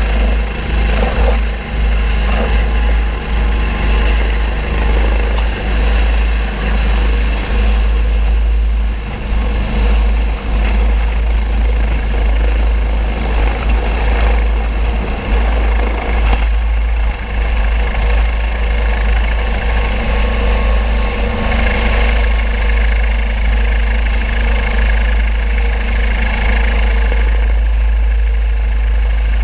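Bell 429 twin-turbine helicopter running steadily: a continuous heavy low rumble with several steady whining tones over it.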